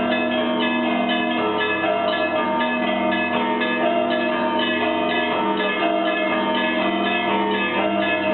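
Russian Orthodox monastery bells pealing: many bells of different pitches struck in quick succession, their ringing overlapping without a break.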